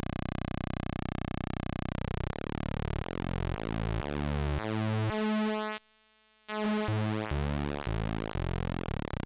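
Earophone Mimsy, an Atari Punk Console-style stepped tone generator, playing a harsh buzzy square-wave tone as its knobs are turned. The tone holds steady for about two seconds, then steps down in pitch to a low stuttering buzz, cuts out briefly just after the middle, and steps back up toward the end.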